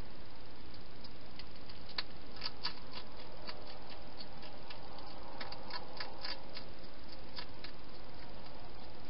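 European hedgehog eating from a bowl: a run of small chewing clicks and smacks, busiest around the middle, over a steady hiss.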